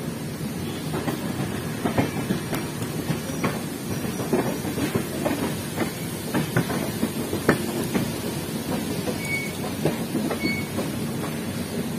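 Passenger coach wheels rolling with a steady rumble and irregular clattering as they cross rail joints and points, with a couple of short high squeaks near the end.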